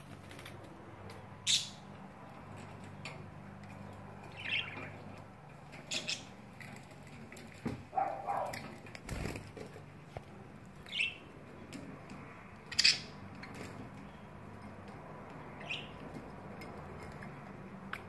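Pet budgerigars giving short, high chirps every couple of seconds, about seven in all, the loudest one near the end.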